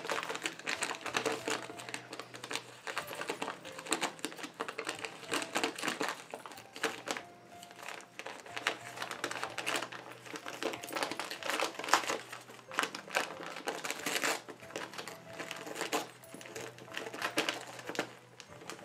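A dog tearing and crinkling Christmas wrapping paper with its mouth: a dense, irregular crackling and ripping, with brief lulls.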